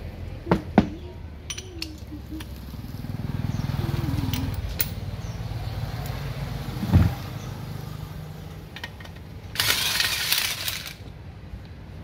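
Tools knocking and clattering as they are handled around an electric water pump on a workbench, with a low rumble in the middle, a single thud, and a loud hiss lasting about a second and a half near the end.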